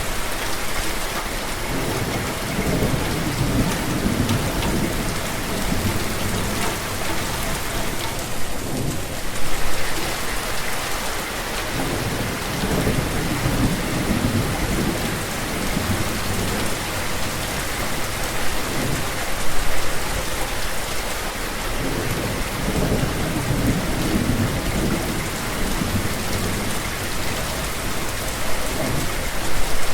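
Steady heavy rain, with low rolls of thunder rumbling in and out every few seconds.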